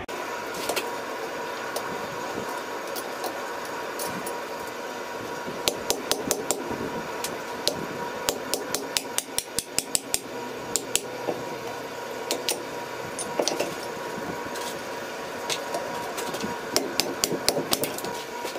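Blacksmith's hand hammer striking hot steel on an anvil in quick runs of light blows, the first starting about a third of the way in and another near the end, over the steady whir of a coal forge's air blower.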